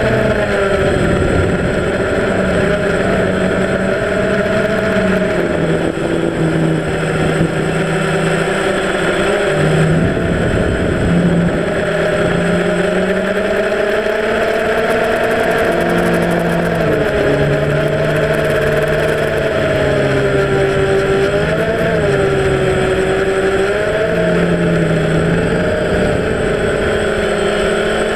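Electric motors and propellers of a small camera drone in flight, heard through its onboard camera: a loud, steady whine whose pitch keeps shifting up and down.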